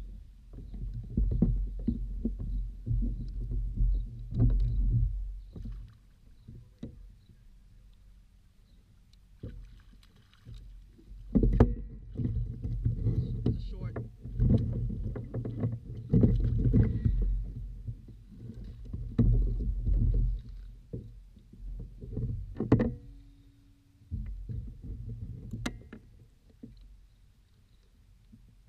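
Handling noise aboard a Hobie Outback kayak while a fish is reeled in and netted: irregular low rumbling in stretches, with several sharp knocks of gear against the hull.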